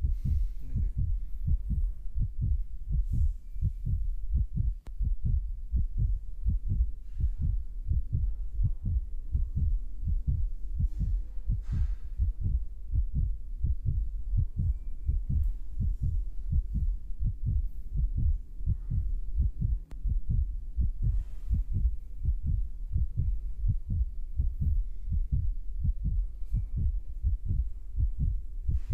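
Low, dull thumping repeating several times a second without a break, like a fast heartbeat.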